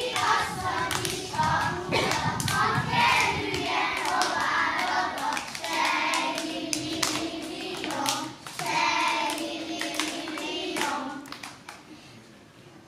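A group of young children singing a song together, with sharp claps keeping the beat as they dance; the singing fades out near the end.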